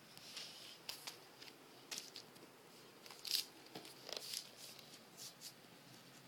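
Thin plastic play mat crinkling and rustling as it is handled, in short scattered crackles, the loudest a little past three seconds in.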